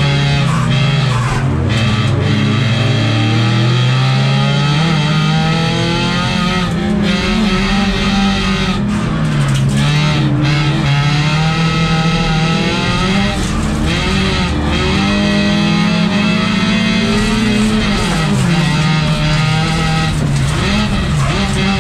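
Folk-race car's engine heard from inside the cabin, revving up and falling back over and over as the car accelerates and lifts round the track.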